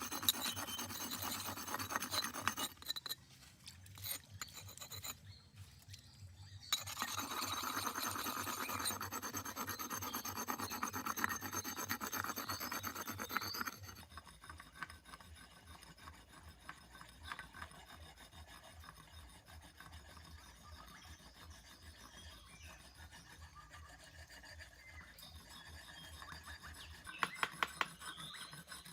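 Hard scraping and rubbing, like something being filed or ground. It stops briefly about 3 s in, runs again from about 7 s to 14 s, then fades to quiet, and a quick run of regular taps begins near the end.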